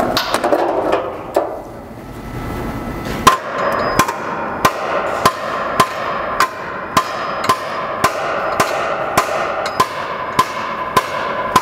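Hammer blows on the steel frame rail of a 2005 Ford Focus while it is held under a frame-straightening pull, starting about three seconds in and repeating steadily a little less than twice a second, each with a short metallic ring. The hammering relieves stress in the bent rail so the metal moves where it is wanted.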